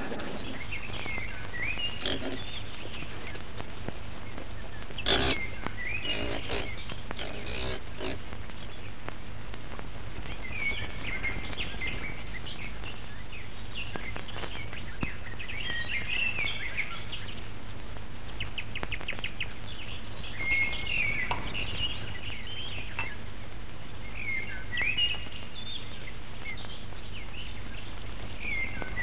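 Scattered short animal calls and chirps over the steady hiss and hum of an old film soundtrack, with a cluster of louder calls about five to eight seconds in and a quick run of clicks around eighteen seconds.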